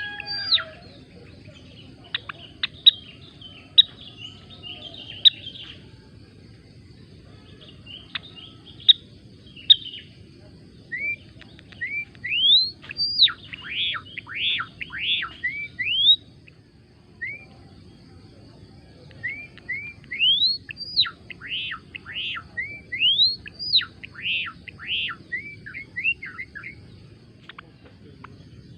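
Gelatik belong (Java sparrow) singing: scattered clicks and short notes at first, then two runs of quick rising and falling whistled notes, the first about eleven seconds in and the second about nineteen seconds in. A faint steady hum lies underneath.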